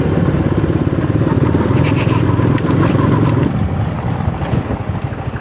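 Motorcycle engine running in rapid firing pulses while riding rough off-road ground. The revs ease off about three and a half seconds in, and a few sharp knocks come through from the rough surface.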